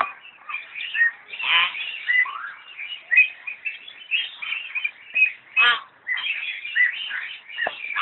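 Myna calling: a busy run of short whistles and chirps, broken by louder harsh, rasping calls about one and a half seconds and nearly six seconds in.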